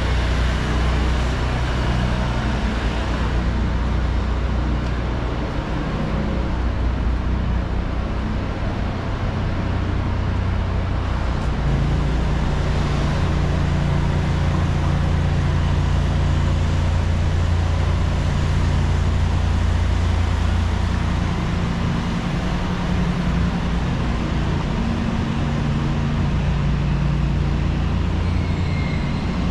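City street traffic: steady road noise and the low hum of vehicle engines, with a nearby engine's drone growing more prominent about twelve seconds in.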